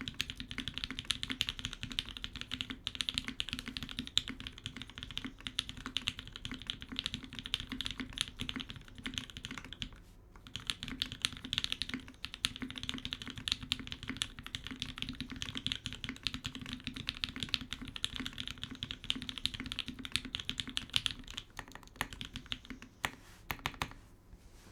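Fast, continuous typing on a TGR 910 RE mechanical keyboard with lubed Gateron Black Ink linear switches on a carbon fibre plate, no dampening, and GMK keycaps. There is a short pause about ten seconds in, and the typing ends with a few last separate keystrokes near the end.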